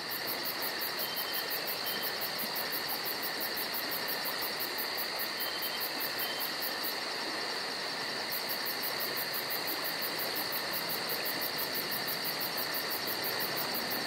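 Steady chirring chorus of insects, with a fast, even pulsing high up that drops out for about a second around seven seconds in.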